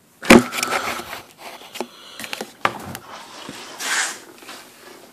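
Handling noise as things are moved about: a loud knock just after the start, then scattered clicks and scrapes and a brief rustle about four seconds in.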